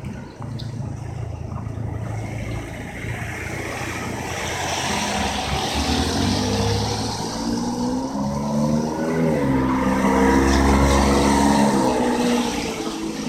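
A car driving past, its engine tone changing pitch in steps as it approaches, loudest about ten seconds in, then fading.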